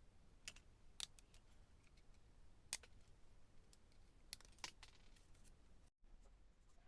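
Faint, scattered sharp clicks and light taps as the worn carbon brushes are worked out of the blower fan motor's brush holders, about eight irregular clicks in all.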